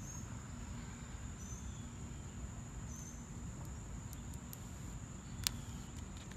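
Insects droning steadily in one high, continuous tone over a low outdoor rumble, with a single sharp click about five and a half seconds in.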